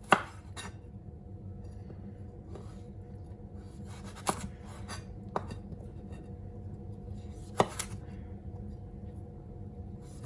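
Chef's knife cutting through a carrot onto a cutting board as it is squared off: a few sharp, irregularly spaced knocks of the blade hitting the board, the loudest one right at the start, over a steady low hum.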